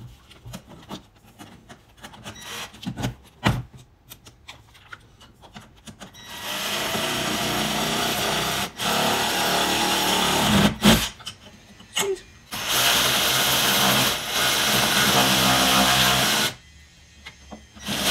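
Ryobi cordless power tool driving a bolt to mount a bracket. It runs steadily three times, for about two to four seconds each, after a few seconds of light clicks and handling knocks.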